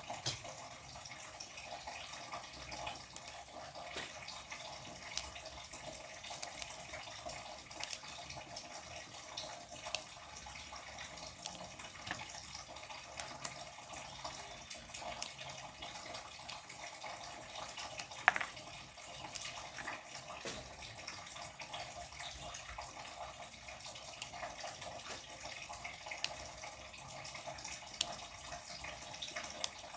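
Water running steadily from a tap into a kitchen sink, with scattered small clicks and one sharper clink about eighteen seconds in.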